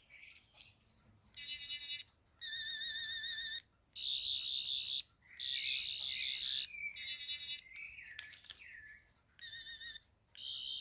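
Toy Doctor Who sonic screwdriver sound effect: a high, warbling electronic buzz switched on and off in a series of short bursts as its button is pressed, with a fainter gliding tone near the middle.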